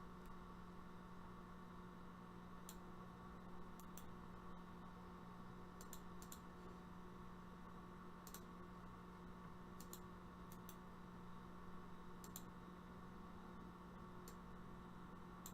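Near silence: room tone with a steady low hum and about a dozen faint, sharp clicks at irregular intervals, some in quick pairs.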